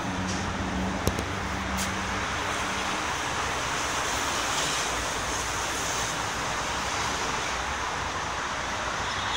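Steady background road traffic noise, with a low hum that dies away about three seconds in and a single sharp click about a second in.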